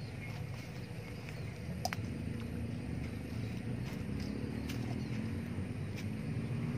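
A steady low engine rumble, its pitch starting to rise near the end, with a few sharp ticks.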